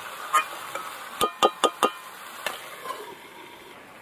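Sharp metal clinks against a metal kadai, several in quick succession a little over a second in, each with a brief ring, as the masala-coated chicken is stirred and the pan covered. A faint sizzle of the chicken frying runs underneath.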